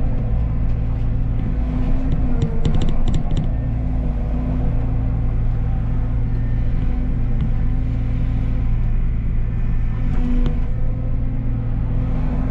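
Excavator's diesel engine running steadily under load, with a few short metallic clicks and clanks about two to three seconds in.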